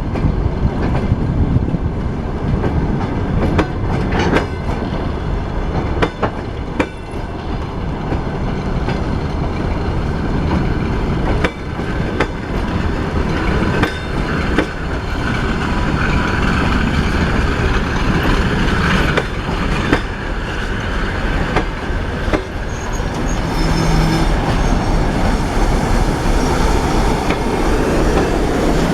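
Diesel-hauled train rolling past on jointed track: a continuous rumble of wheels, with sharp clicks as they cross rail joints and occasional wheel squeal. A steady tone joins the rumble a few seconds before the end.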